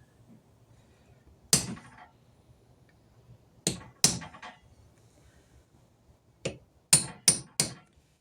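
Hammer striking a punch to stake the starter switch so its parts are pushed in tight: seven sharp strikes, two single blows and a quick pair, then four in a row near the end.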